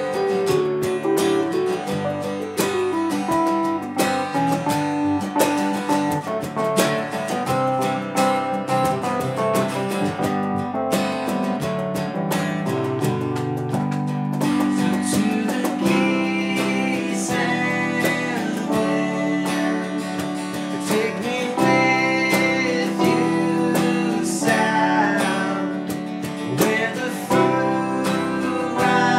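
A small band playing live: acoustic guitar strumming over sustained keyboard chords, with hand-struck percussion keeping the beat.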